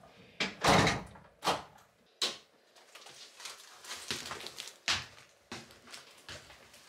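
A door being opened and shut indoors, with a run of sharp knocks and clatters from handling. The loudest and heaviest is about a second in, followed by several shorter clicks.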